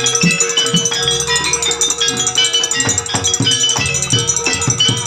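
A Banyuwangi gamelan ensemble playing live: kendang hand drums beat quick strokes under a stream of ringing metallophone notes, with one note held steadily beneath.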